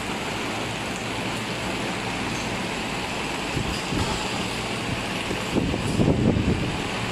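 Steady rushing air noise of large industrial pedestal fans running, with a few low thumps about four seconds in and again around six seconds.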